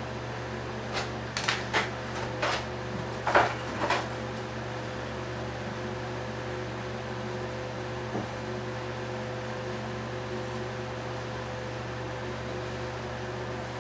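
Steady mechanical hum of a fan or similar room appliance, with several short clicks and rustles in the first four seconds as the balsa tri-stock and glue bottle are handled on the workbench.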